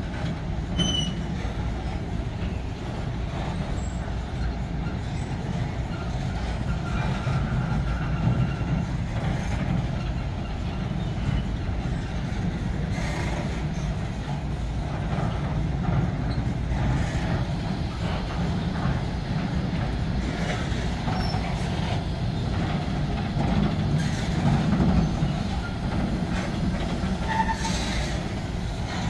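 Freight train of bauxite gondola wagons rolling steadily past: a continuous low rumble of steel wheels on rail, with a clank now and then.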